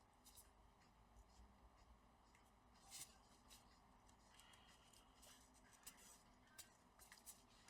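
Near silence: room tone with a few faint clicks and rustles of handling.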